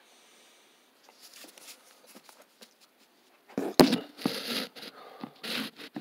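Handling noise of a phone being moved and set down: near-quiet at first, then about three and a half seconds in a couple of sharp knocks, followed by a second or two of rustling and scraping.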